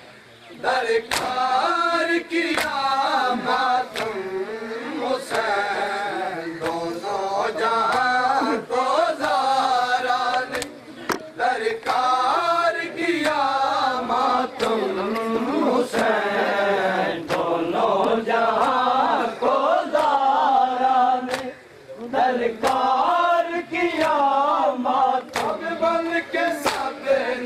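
A group of men chanting a noha in unison while beating their chests in matam. The hand slaps land about once a second under the singing, which breaks off briefly near the end.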